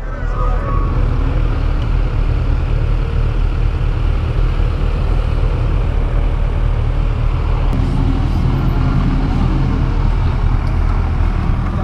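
Kawasaki Ninja 1000's inline-four engine running at steady, unchanging revs, with a steady rush of noise over it.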